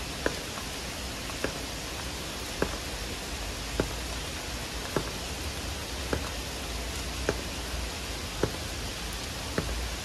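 Heavy rain falling steadily, with a loud drip landing close by at an even pace of about one every second.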